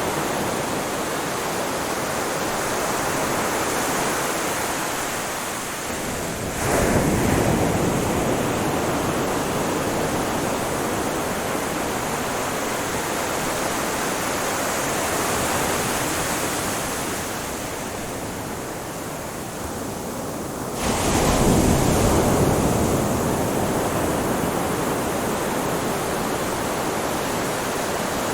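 Ocean waves on a beach: a steady wash of surf, with two waves breaking about fourteen seconds apart, each surging suddenly and then slowly fading as the water runs back.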